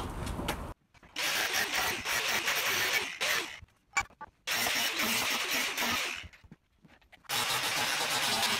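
Angle grinder with a cutting disc cutting into a steel bicycle frame to free its threaded bottom-bracket shell. It runs in three stretches of a couple of seconds each, and each one cuts off suddenly.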